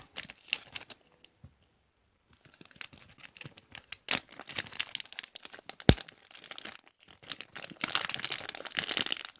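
A packaging bag being torn open and crumpled by hand, giving dense crinkling that pauses briefly near the start and is heaviest near the end. One sharp knock comes about six seconds in.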